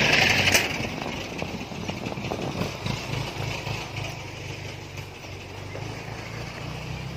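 Small engine idling steadily with a low pulsing beat. This is plausibly the engine of a tracked rice-bag carrier. A loud rushing noise in the first half-second cuts off abruptly.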